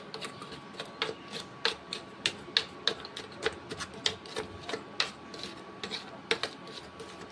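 Metal spoon tapping and scraping against the inside of a mixer-grinder jar, stirring ground biscuit and sugar powder. It makes irregular clicks and taps, about three a second.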